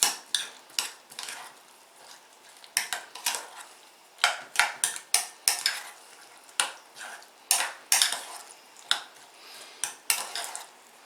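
A utensil stirring a thick mayonnaise dressing with chopped onions and pickles in a bowl. It clinks and scrapes against the bowl in irregular strokes, often two or three close together, with short pauses between them.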